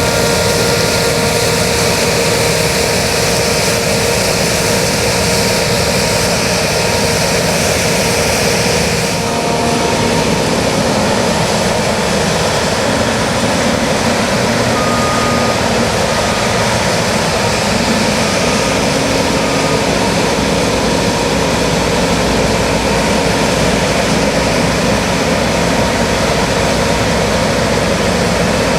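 New Holland CX8090 combine harvester running steadily at working speed during harvest, a continuous heavy machine noise with a steady engine hum. The higher hiss drops away about nine seconds in, and a few faint short beeps sound in the middle.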